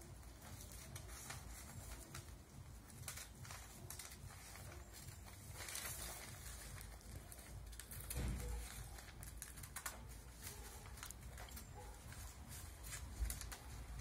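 Scissors cutting through folded newspaper: a run of faint snips and crackles of paper, with a brief low rumble about eight seconds in.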